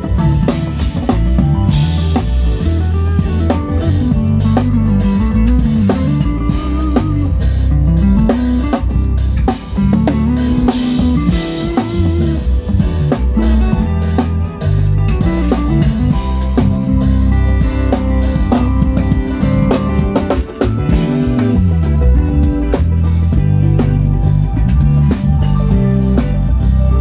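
Band music with drum kit and guitar playing at a steady beat, over a low line that slides up and down in pitch.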